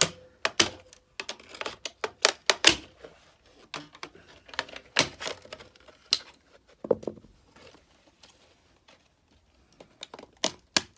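Irregular sharp clicks and knocks of plastic casing parts being pried apart and handled while a discarded electronic device is taken apart. They come thickest in the first few seconds and again midway, ease off, and pick up again near the end.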